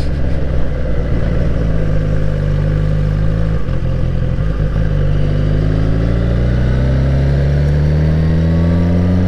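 Suzuki GSX-R1000 K7's inline-four engine running under way, heard from the bike. The engine note breaks briefly about four seconds in, then rises steadily as the motorcycle accelerates.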